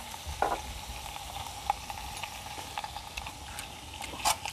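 Fish and pork sizzling steadily on a domed tabletop grill pan, with scattered light clicks of tongs and chopsticks against the pan and a sharper clink about four seconds in.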